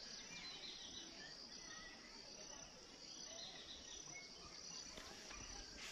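Faint outdoor ambience: a steady high insect chorus, like crickets, with a few faint bird chirps.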